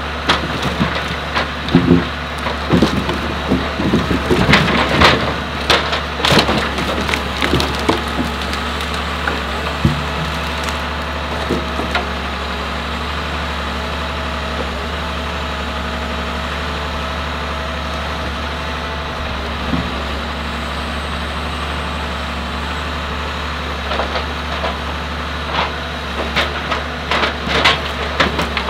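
Komatsu 875 forwarder loading logs with its crane and grapple: the diesel engine runs steadily while logs knock and clatter against each other and the load bunk, in a run of knocks through the first dozen seconds and another near the end.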